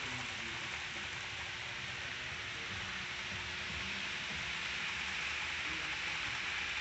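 Steady, even hiss of room noise, with a faint low rumble underneath.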